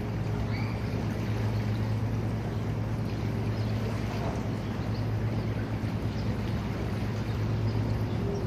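A steady low engine drone under an even rushing noise.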